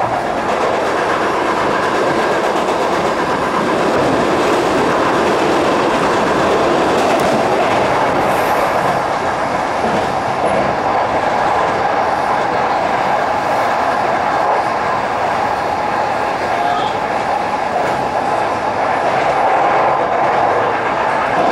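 Toyo Rapid Railway 2000 series electric train running at speed, heard from inside its lead car: a steady running noise of wheels on rail with a few faint steady tones.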